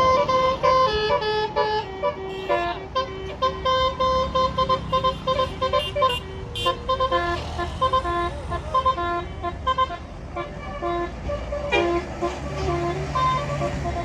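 A bus's telolet (basuri) multi-tone air horn playing a fast melody of short stepped notes, with the engine running underneath.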